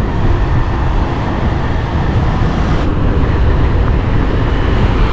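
Steady wind rumble on the microphone and road noise from riding a custom electric scooter along a street. There is no engine note, as the scooter's motor is electric.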